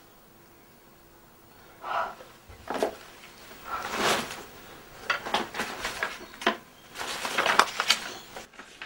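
Sheets of sketch paper being picked up and handled, a string of short rustles and crinkles starting about two seconds in.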